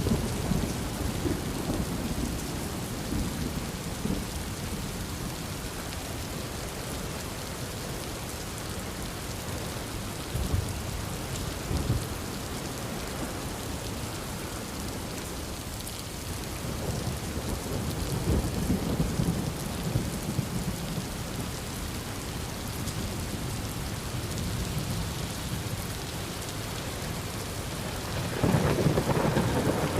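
Heavy rain pouring steadily while thunder rolls in low rumbles several times. A louder peal of thunder breaks in near the end.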